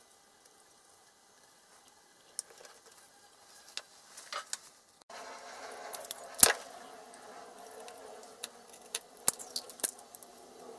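Hobby knife scraping and prying at the plastic casing of a small electronics module: scattered scratches and sharp clicks starting about two seconds in, the loudest click about six seconds in.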